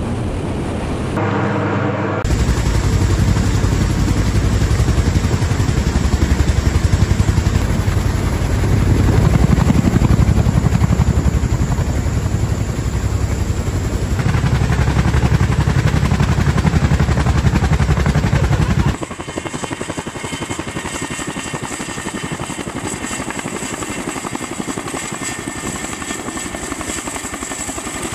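Tandem rotors of an MH-47G Chinook helicopter beating fast and steadily, loud and heavy in the low end. About two-thirds of the way through the sound cuts abruptly to a quieter, brighter rotor chop with a steady high whine.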